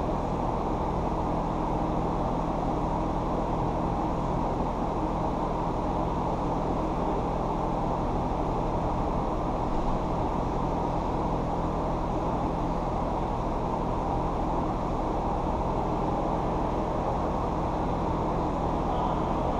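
Steady low hum and rumble of machinery with a dull noise layered over it, unchanging throughout and with no distinct knocks or voices.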